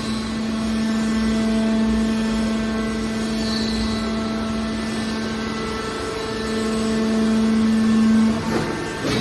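Metal baler machinery running with a steady, even hum that grows louder toward the end, then breaks off, followed by a few knocks.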